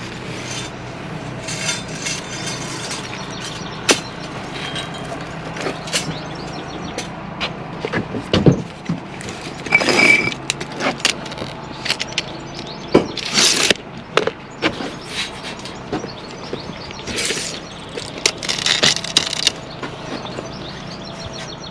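Irregular clicks, knocks and scrapes of hands and tools working at a metal bricklaying profile and its string line, with a brief squeak about halfway through, over a steady low hum.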